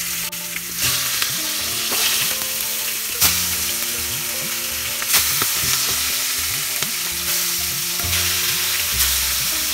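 Catfish steaks sizzling as they shallow-fry in hot mustard oil, a steady hiss with a sharp pop or spatter every couple of seconds.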